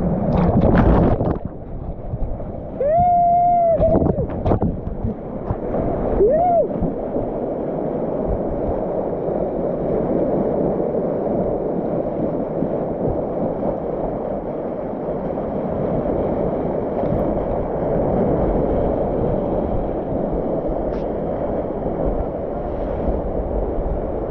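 Steady rushing of water with wind noise on the microphone. Two or three short pitched calls come in the first few seconds.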